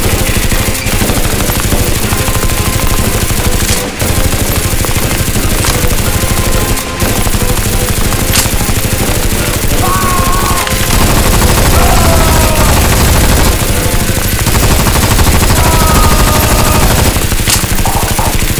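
Nerf blasters firing in a rapid, near-continuous stream of automatic shots, loud, with only brief gaps.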